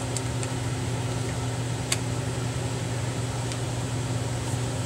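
Steady low electrical hum over room hiss, with a few faint light clicks of the MacBook's plastic display bezel being pried and handled, the sharpest about two seconds in.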